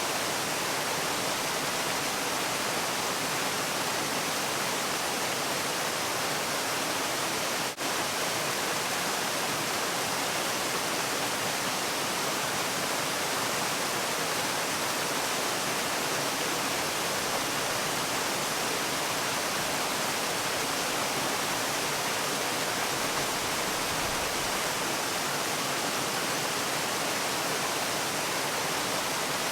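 Waterfall rushing as a steady, even hiss, with one momentary dip about eight seconds in.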